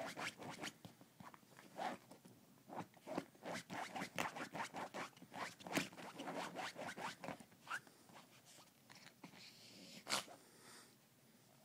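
A puppy scraping and biting at couch upholstery, short rasping scrapes in quick irregular runs that thin out near the end, with one sharp click about ten seconds in.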